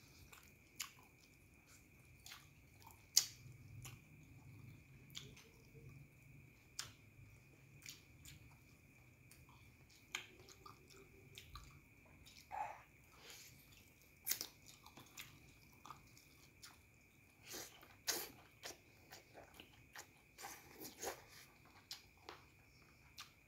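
Close-up chewing and biting of a person eating goat curry meat with rice and noodles by hand: irregular mouth clicks and smacks, a few noticeably louder than the rest.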